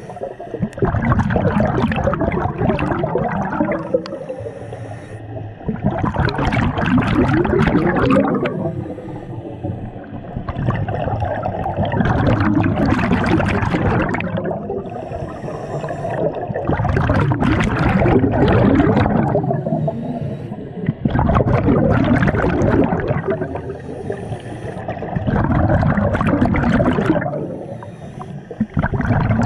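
A scuba diver breathing through a regulator underwater: a rush of exhaled bubbles rises and fades in a steady cycle, about one breath every five seconds, with quieter gaps between breaths.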